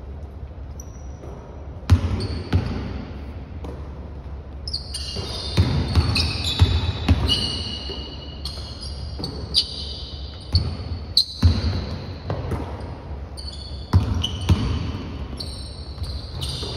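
Basketball game on a hardwood court: the ball bouncing and thudding on the floor several times, with many short high-pitched sneaker squeaks.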